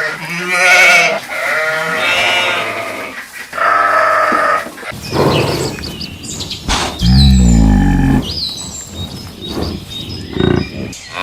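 Farm animals calling: a series of wavering, pitched calls one after another, with a deeper, falling call about seven seconds in and a few short high chirps just before it.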